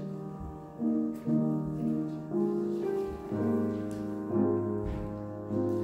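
Keyboard postlude at the close of the service: slow, sustained chords, changing about once a second.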